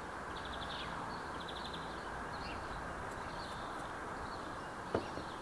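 Songbirds chirping in short trills several times over a steady background rush of outdoor ambience, with one brief sharp sound near the end.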